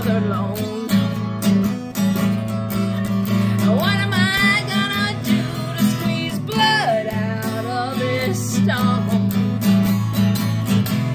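Acoustic guitar strummed steadily, with a woman's singing voice coming in for a few short phrases over it.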